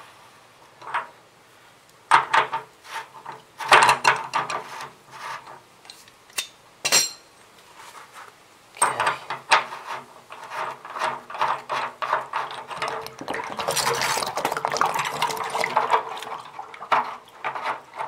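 Metal clinks, clatter and scraping as an electric water heater's screw-in heating element is turned out with a breaker bar and socket and swapped by hand. Scattered clicks in the first half give way to denser clicking and scraping in the second.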